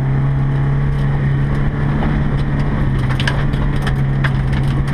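Volvo 240 rally car's engine running at steady revs, heard from inside the cabin, over the crunch of gravel under the tyres. A cluster of sharp clicks about three to four seconds in, stones flicked up against the car.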